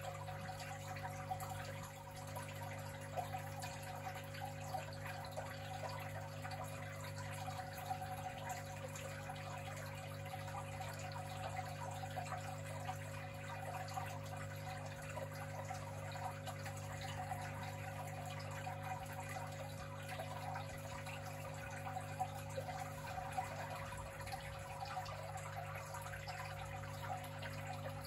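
Steady low hum with water trickling and dripping throughout.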